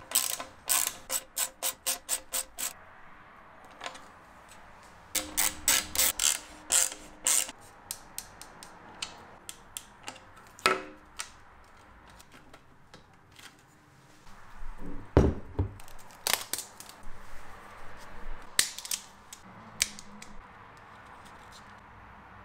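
Small hand ratchet with a hex bit driving M5 bolts into a battery mount rail: runs of quick ratchet-pawl clicks, about four a second, in two bursts, then scattered clicks and a louder thump about two-thirds of the way through.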